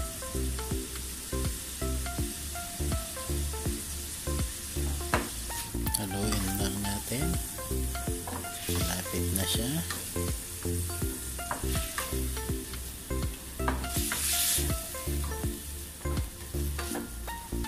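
Pork liver sizzling as it sautés in olive oil in a frying pan, stirred with a wooden spatula, with a couple of louder spells of hissing. Background music with a low beat runs underneath.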